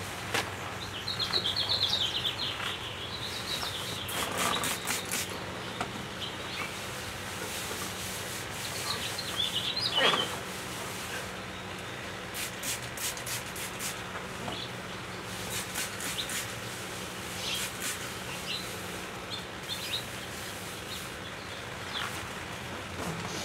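Paper towel being rubbed over a sanded wooden tabletop wet with soapy water, wiping off the sanding dust: soft rubbing with several runs of quick scratchy strokes. Birds chirp now and then, most clearly near the start.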